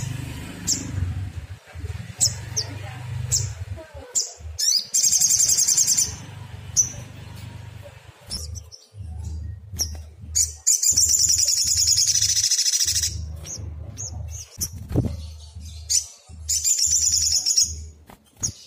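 Sunbird song: high-pitched trills and short sharp chirps, with longer rapid trills about five, eleven and seventeen seconds in, over a steady low hum.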